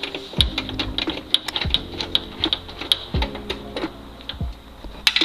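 Quick, irregular clicking of a hand ratchet wrench undoing the cowl panel fasteners, over background music with a looping low pattern that repeats about every second and a half.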